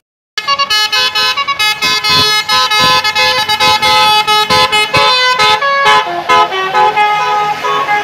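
Coach bus's Basuri telolet horn playing a melody: a quick run of short, loud multi-tone notes that changes pitch note by note, then settles into longer held notes. It starts a moment in, after a brief break in the sound.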